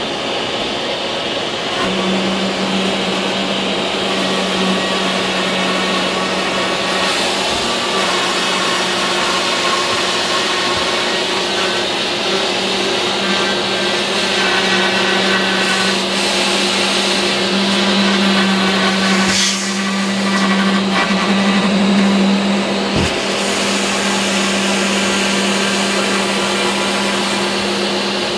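An electric router cutting a fin-box slot in a foam surfboard blank, running together with a shop vacuum whose hose is held at the cutter to suck up the foam dust. A steady hum joins the vacuum's noise about two seconds in and holds, shifting slightly now and then as the cut goes on.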